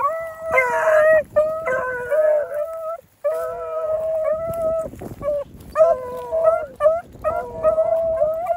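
Two beagles baying on a scent trail: long drawn-out bawls, overlapping and breaking off now and then, with a short pause about three seconds in. This is hounds giving mouth while trailing a rabbit.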